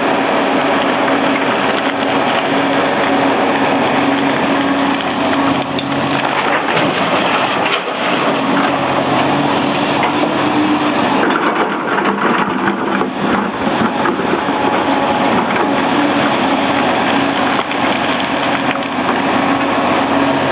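Komatsu PC300-7 hydraulic excavator's six-cylinder diesel engine running under working load, its hum dipping and picking up again a few times. Over it is a continuous crunching and clattering of material being dug and loaded.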